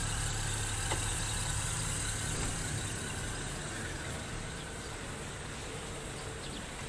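Suzuki Multicab's F6A three-cylinder engine idling steadily, running again after a dirty, corroded fuse was replaced; the hum grows fainter about three seconds in.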